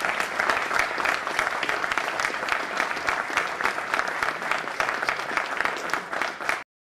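Audience applauding steadily, then stopping abruptly near the end.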